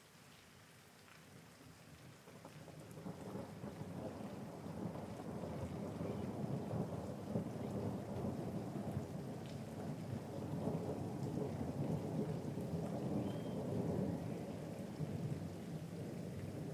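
Steady rain with a long rolling thunder rumble that builds in about three seconds in and keeps rumbling to the end.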